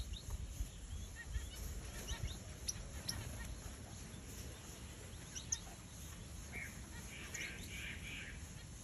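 Button quail (king quail) chicks peeping from under the brooding hen: scattered short, high, thin chirps, with a busier run of softer chirps about seven to eight seconds in. A low rumble of handling or wind on the microphone in the first couple of seconds.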